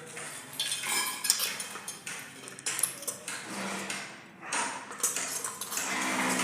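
Irregular clinks, knocks and scraping as a plastic bottle trap is handled and fitted onto a hand-wash basin.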